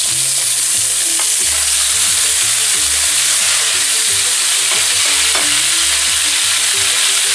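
Rabbit pieces frying in hot olive oil in a casserole: a steady sizzling hiss, with a few light clicks.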